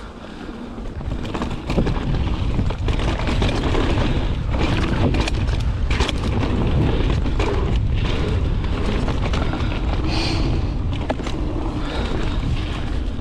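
Santa Cruz mountain bike descending a rocky dirt singletrack. Wind rumbles on the camera microphone over the tyres on dirt and the bike's rattle, with frequent sharp knocks as it hits rocks and bumps. It gets louder about two seconds in as the bike picks up speed.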